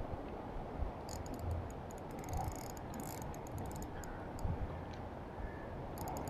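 Fishing reel being wound in short spells, a fine rapid clicking that comes and goes several times while a mullet is brought in to the landing net, over a steady low rush.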